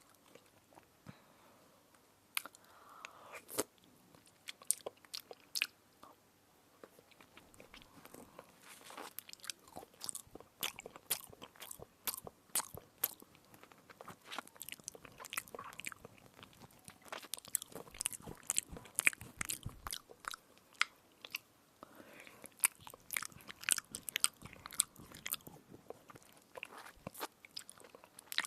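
Close-miked biting and crunching of an edible spoon: irregular crisp cracks and crackles, sparse for the first few seconds and coming thick and fast through the second half.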